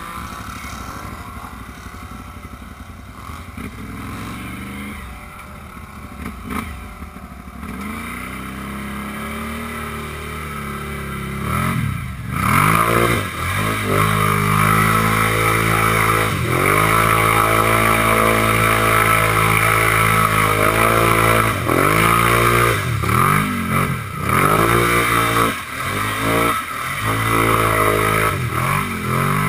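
ATV engine running as the quad rides through mud and water, quieter at first, then louder from about halfway through, with the revs rising and dropping again and again as the throttle is opened and closed.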